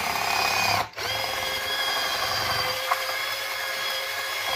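Electric drill running steadily with a paddle mixer, stirring thick acrylic putty in a bucket; the motor whine breaks off very briefly about a second in.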